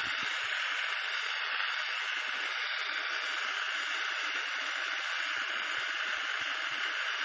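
Soldering torch flame hissing steadily while silver-soldering a belt loop onto a silver buckle.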